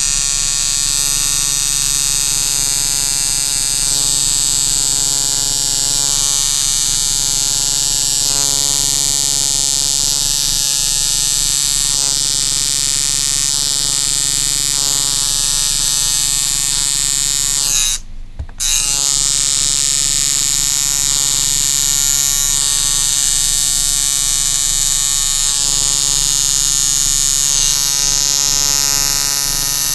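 Coil tattoo machine buzzing steadily as it runs lines into skin. The buzz briefly cuts out about eighteen seconds in, then carries on.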